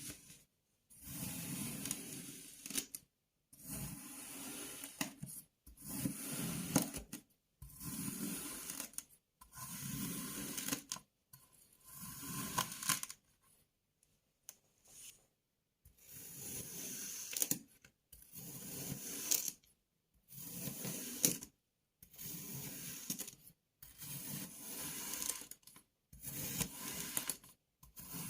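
Kinetic sand being cut and crumbled: short crunchy, gritty passes with sharp clicks, about a dozen in a row, each cut off abruptly into brief silence, with a longer pause a little before halfway.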